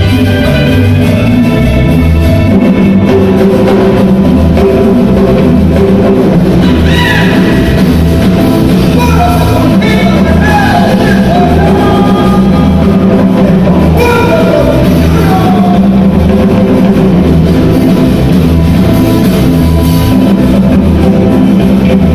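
Loud music with a steady, even drum beat and a singing voice, played over a sound system.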